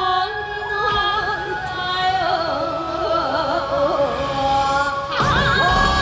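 Yosakoi dance music played loud over the stage sound system: a sung melody with wavering, ornamented pitch over a sparse backing, with the full band and heavy drums coming back in about five seconds in.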